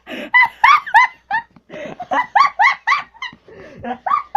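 High-pitched, squealing laughter: runs of short rising squeaks, broken by loud gasping in-breaths about three times.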